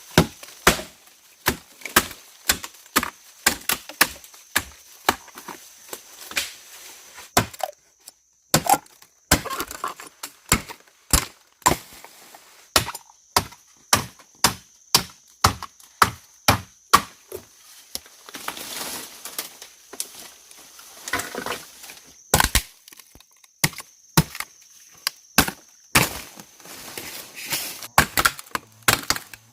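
Wood being chopped with a blade: sharp, repeated strikes, about two a second at times, with short pauses between runs of blows.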